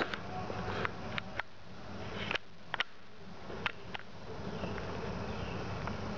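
Steady buzz of insects, with a few sharp clicks scattered through the first half.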